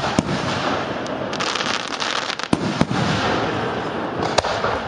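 Fireworks display: aerial shells bursting with sharp bangs, four of them, over a continuous dense crackle that is heaviest in the middle.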